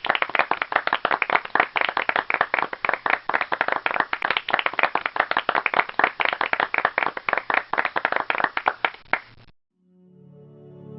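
Applause: many hands clapping densely and irregularly, stopping abruptly about nine and a half seconds in. Soft music with sustained notes fades in near the end.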